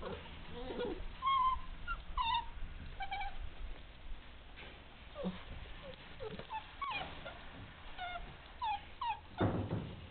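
Ariégeois hound puppies whimpering, with many short, high-pitched squeaks scattered throughout. A louder burst of noise comes near the end.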